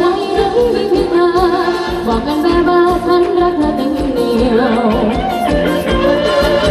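Live Thai ramwong band music: a wavering singing voice over a steady drum beat.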